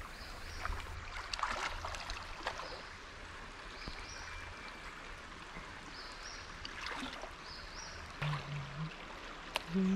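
Water of a small stream flowing and trickling, with many small crackling clicks and splashes. A few faint short high tones come through now and then.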